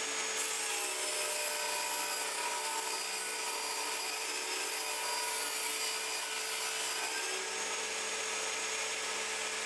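Table saw running steadily as it rip-cuts a 4 cm wide strip from an oak board, motor whine and blade cutting through the wood together.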